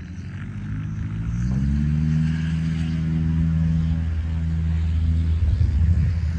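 The engine towing a glider into its take-off roll: it rises in pitch over about a second, then holds steady at full power.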